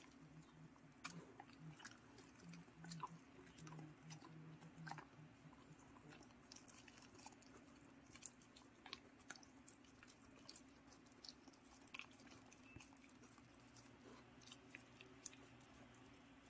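A dog chewing steamed sweet potato eaten from a hand: faint, irregular wet chewing with small smacking clicks.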